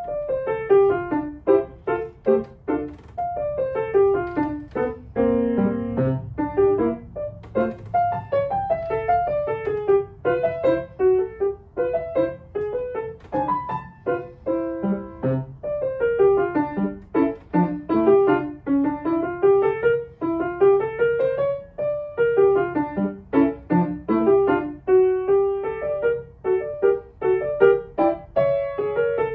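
Solo upright piano being played, starting right at the beginning: a lively piece made of quick runs of notes that sweep up and down the keyboard.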